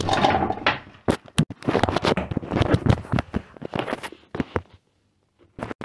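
Rapid, irregular crackling and scraping of a phone's microphone being handled and rubbed, breaking off for about half a second near the end before starting again.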